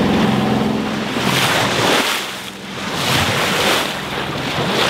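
Sailboat under way: its engine drones steadily for about the first second. Then rushing water along the hull and wind on the microphone swell and fade in several surges.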